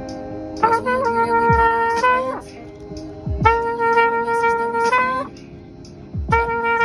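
Trumpet played live: three phrases of long held notes, each about two seconds, with short breaks between.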